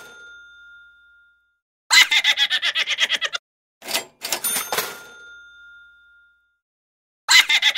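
Edited-in sound effects: the dying ring of a cash-register 'ka-ching', then a quick snickering laugh. After it come a second ka-ching with its bell ringing out, and a second burst of snickering near the end.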